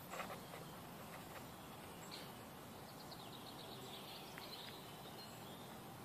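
Quiet woodland ambience: a steady faint background hiss with a few faint, short high chirps from birds or insects about two to five seconds in.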